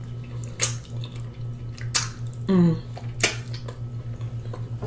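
Wet mouth sounds of eating saucy oxtail meat by hand: a few sharp lip smacks and sucking clicks, with a brief falling hum of the voice about two and a half seconds in, over a steady low hum.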